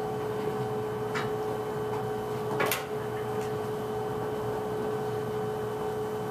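A steady electrical hum in the room, with a faint click about a second in and a louder knock a little under three seconds in.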